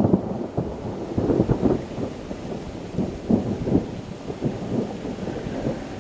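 Thunder rumbling and rolling in uneven swells, loudest near the start and again about a second and a half and three and a half seconds in.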